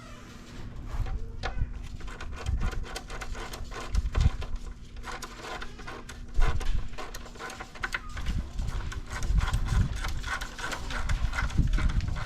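Irregular clicks, clinks and knocks of hand tools and engine parts being handled and fitted during engine reassembly, with a few heavier thumps, over a steady low hum.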